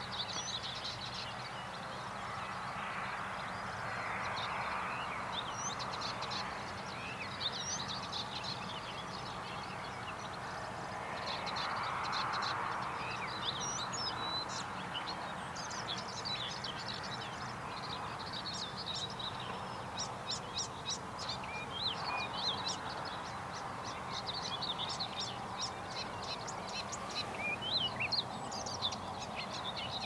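Many small birds singing and calling in the early morning, a steady scatter of short, high chirps and twitters, over a steady outdoor hiss that swells twice, about 4 and 12 seconds in.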